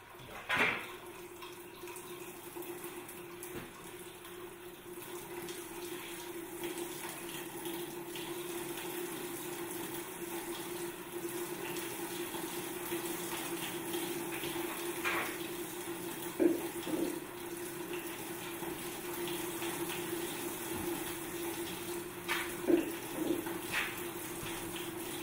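Water running and trickling steadily through a small model waterfall, with a steady low hum under it, likely its circulating pump. A few brief knocks come partway through and again near the end.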